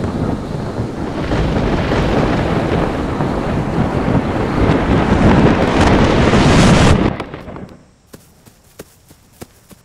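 Thunderstorm sound: a heavy rumble of thunder with a rushing wash of storm noise that swells and then cuts off abruptly about seven seconds in. Faint light footsteps follow near the end.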